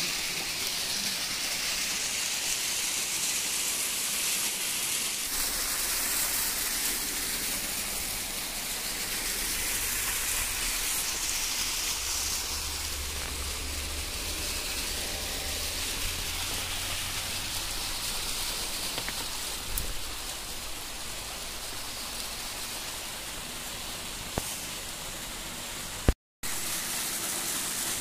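Small waterfall cascade, water rushing steadily over rock slabs.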